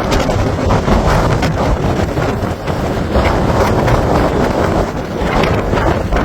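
Strong storm wind gusting and buffeting the microphone, a loud low rumble that swells and eases with each gust, with crackles from the buffeting.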